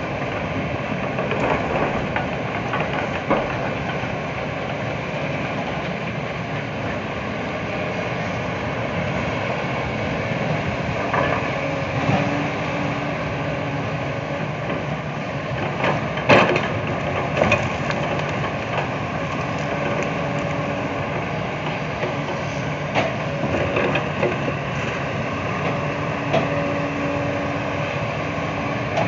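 Diesel engine of a hydraulic excavator fitted with a log grapple running steadily as it lifts logs from a truck. A few sharp knocks about halfway through, and a faint hum that comes and goes in the second half.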